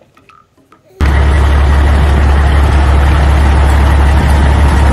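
Truck engine running at a steady idle, cutting in abruptly about a second in, loud with a strong low hum.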